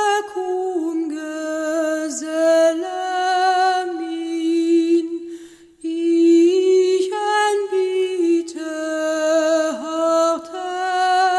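A woman singing solo and unaccompanied, holding long notes with a slight waver in pitch, with a short break for breath about six seconds in.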